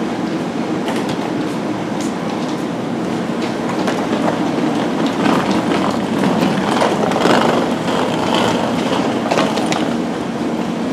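Amtrak passenger train standing at the platform: a steady hum from the train's running equipment, with scattered light clicks and knocks.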